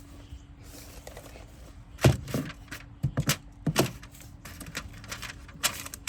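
Siding being pried off a wall: a handful of sharp knocks and cracks as the brittle boards break loose, the loudest about two seconds in.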